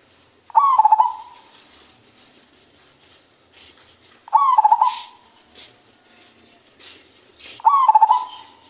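Male zebra dove (perkutut) cooing in a deep voice: three rolling, pulsed coos spaced about three and a half seconds apart, each under a second long.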